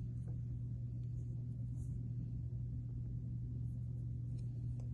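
A steady low hum, with a few faint soft ticks and rustles from hands handling a silicone watch band.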